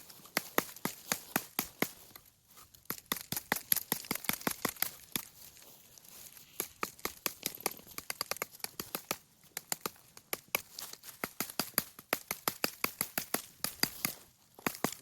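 Footsteps crunching on dry, stony ground along a trail: a quick run of sharp crunches, about three to five a second, breaking off for a moment a few times.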